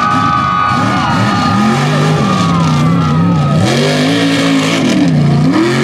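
Mega mud truck's engine revving hard under load, its pitch climbing and dropping several times as the throttle is worked, with the biggest dips about two thirds of the way in and near the end.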